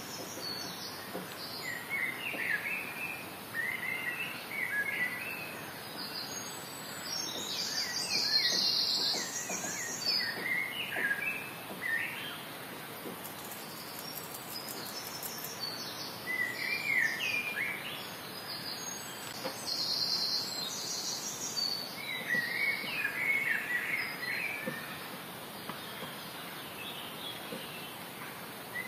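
Wild songbirds singing in a forest: short chirping phrases come in clusters every few seconds, with higher, thinner chirps now and then, over a steady background hiss.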